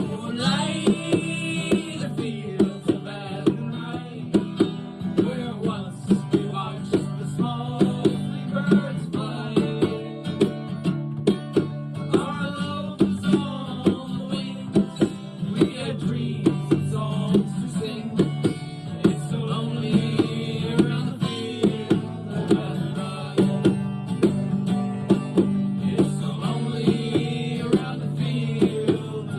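Instrumental folk music: guitar with plucked strings playing a steady, even rhythm over sustained low notes.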